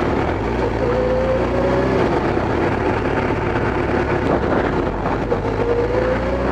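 Kawasaki ZX-12R's inline-four engine running under way, with wind noise on the microphone. The engine pitch rises gently twice: about a second in, and again near the end.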